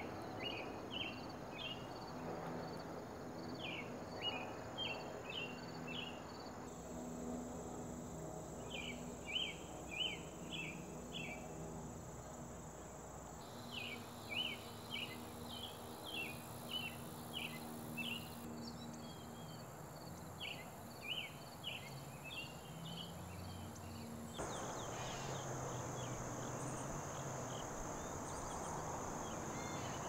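Field insect chorus of crickets and katydids: a steady high trilling with repeated clusters of four or five quick chirps every couple of seconds. The background changes abruptly several times, about 7, 13, 18 and 24 seconds in.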